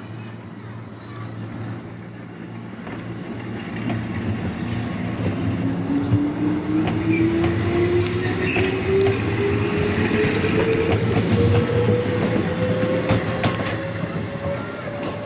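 Nankai 21000 series electric train pulling away, its traction motor whine rising steadily in pitch as it picks up speed. Underneath are wheel rumble and scattered clicks of the wheels on the rails, getting louder from about four seconds in.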